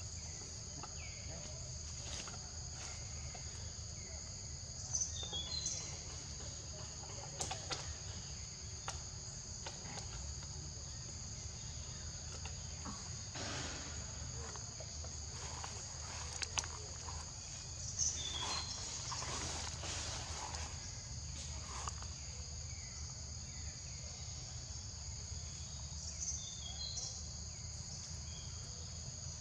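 Steady outdoor insect chorus: a continuous high-pitched buzzing in two even bands, over a low steady rumble, with a few short chirps and light rustles.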